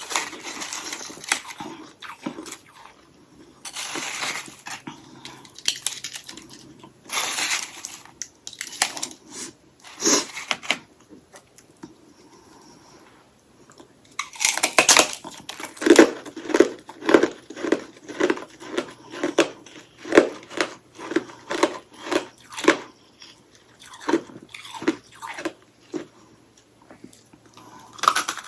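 Hollow ice sticks crusted with freezer frost being bitten and crunched. A few separate crunchy bites come in the first half, then a big bite about halfway and steady chewing about twice a second.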